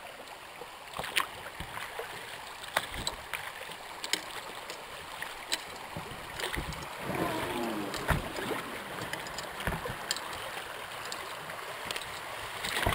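Shallow river riffle running over stones, a steady rush of rippling water heard from a drifting boat, with scattered sharp knocks.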